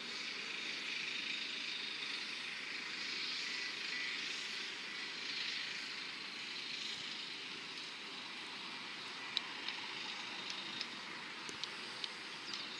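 Steady outdoor background hiss, with a few short sharp ticks in the last few seconds.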